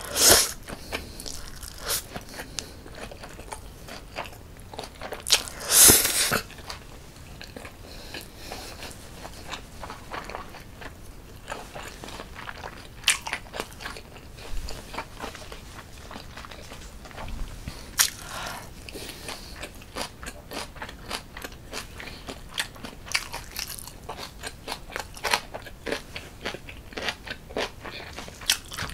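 A person eating Buldak bibimmyeon spicy cold noodles. The noodles are slurped in at the start and again, louder and longer, about six seconds in, followed by steady chewing made up of many small clicks and crunches.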